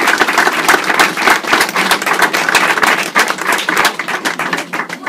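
Audience applauding, a dense, steady clapping that thins out and fades near the end.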